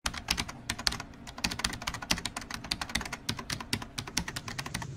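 Keyboard typing sound effect: rapid, uneven key clicks that stop abruptly at the end.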